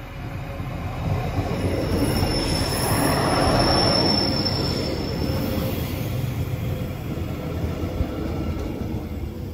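DB class 628 diesel multiple unit rolling into a platform, with a steady low rumble and a high, thin squeal. It is loudest as it passes close about four seconds in.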